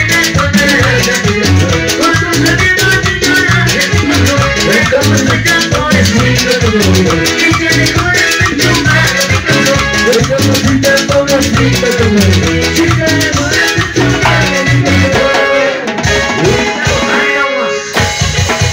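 Loud Latin dance music with a steady beat. The music changes near the end.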